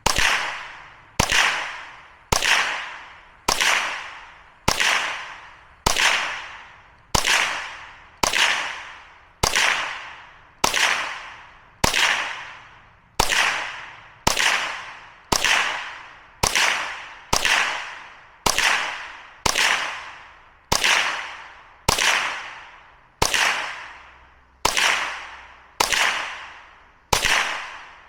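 Rock Island TM22 .22 LR semi-automatic rifle firing one shot at a time, about two dozen sharp cracks evenly spaced a little over a second apart. Each crack trails off in a short ringing decay. It is a steady slow fire through a 25-round magazine until it runs empty.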